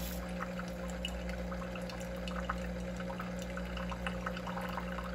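Single-serve pod coffee maker brewing a cup: a steady pump hum under hot coffee streaming and dripping into a glass mug.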